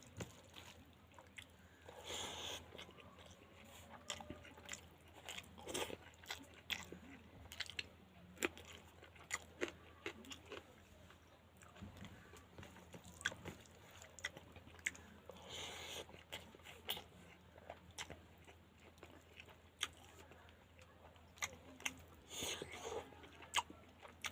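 Close-miked chewing and mouth sounds of a person eating pangas fish curry: many sharp wet smacks and clicks, with a few longer noisy bursts about two seconds in, near the middle and near the end.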